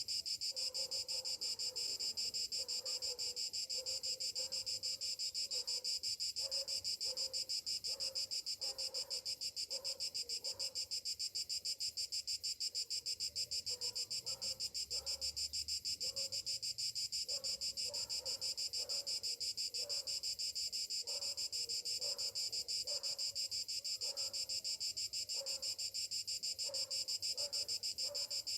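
Cicadas in summer, a steady high-pitched chorus of fast, even pulses. A fainter, lower sound repeats irregularly beneath it.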